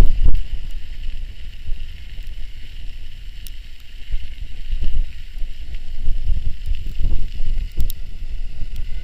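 Wind buffeting the microphone of a camera on a moving electric mountain bike: a loud, gusty low rumble, with a steady high whine underneath.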